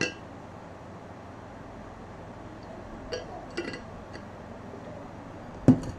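Steady low room hum with a short click at the start, two faint ticks midway, and one sharp knock near the end, the loudest sound.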